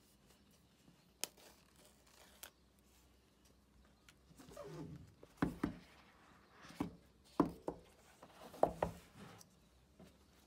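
Hands handling cardboard iPhone 13 Pro boxes: a couple of light ticks, a sliding, rustling scrape about halfway through as a lid comes off, then several short soft knocks as the boxes are set down on the table.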